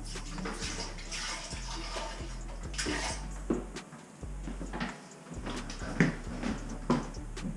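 Antifreeze pouring from a plastic jug into a toilet bowl and splashing for about the first second and a half, to keep the trap from freezing while the house is winterized. A few sharp knocks follow later.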